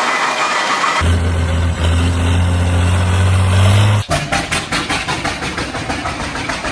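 Diesel tractor engine running, cut together from separate shots. A steady low hum gives way about four seconds in, with an abrupt break, to an even beat of about five or six pulses a second as it ticks over.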